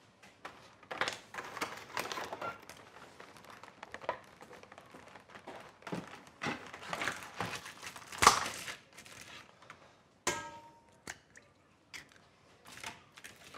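Eggs being handled from a cardboard egg box and cracked into a stainless-steel stand-mixer bowl: irregular crinkling, clicking and tapping. A sharp tap is followed by a brief metallic ring about ten seconds in.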